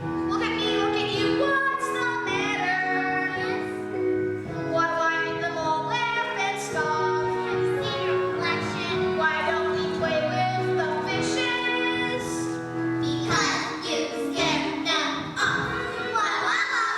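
A show tune from a stage musical: a high solo singing voice holds notes with a waver in pitch over steady instrumental accompaniment. The sound grows fuller about three-quarters of the way through.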